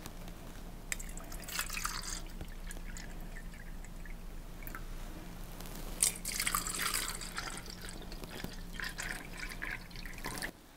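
Water poured from a plastic pitcher into small clear plastic cups, in a few separate pours that splash and trickle into the cups.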